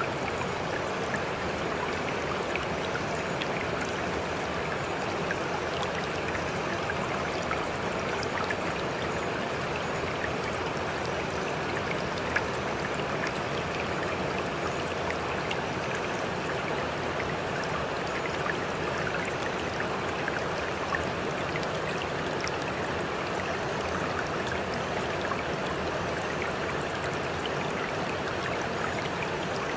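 Running water of a stream: an even, steady rush with many small splashes and drips.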